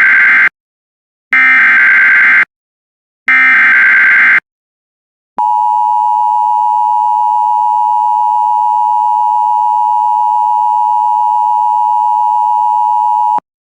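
Emergency Alert System SAME header: three roughly one-second bursts of warbling digital data tones about a second apart, the first already under way. Then the EAS two-tone attention signal sounds steadily for about eight seconds and cuts off sharply. Together they mark the start of an emergency alert, here a severe thunderstorm warning.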